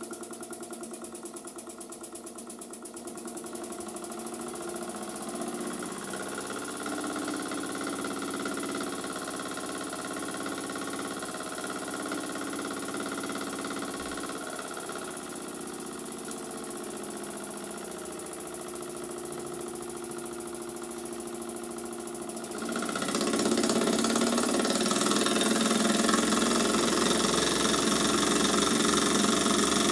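Small Burnac Vulcan toy steam engine running steadily on live steam with a fast mechanical beat; the sound gets clearly louder and brighter about three-quarters of the way through.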